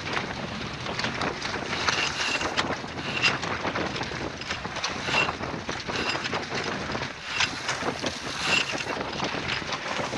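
Wind buffeting the microphone over the rush and splash of waves against the hull of a sailboat under way on a beam reach in about 17 knots of wind, rising and falling in uneven gusts and splashes.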